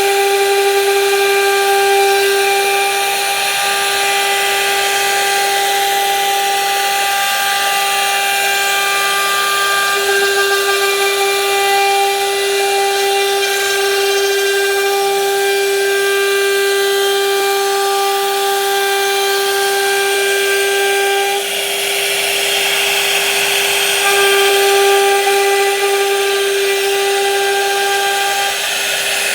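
Electric power tool running at a steady speed with a constant high whine over a hiss. The whine drops out for a couple of seconds about two-thirds of the way through, leaving a louder hiss, then comes back.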